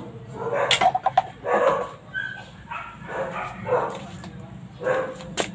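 A dog barking repeatedly, about once a second, with a few sharp clicks in between.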